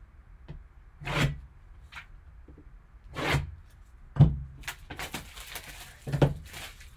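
Gloved hands handling a shrink-wrapped cardboard box on a table: a handful of short rubbing and scraping sounds, each with a soft knock as the box is moved and set down, and a quick burst of rustling about five seconds in.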